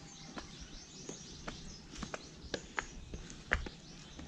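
Irregular sharp clicks and knocks, several a second, the loudest about three and a half seconds in, with faint high bird-like chirps in the background.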